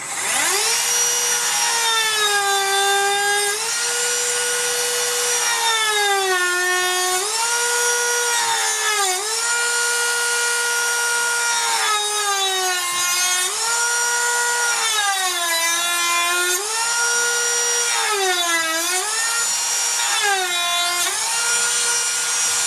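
Small handheld rotary power tool spinning up, then running with its pitch sagging again and again as the bit is pressed into the wood and recovering each time it is eased off, while cutting grooves into a wooden carving.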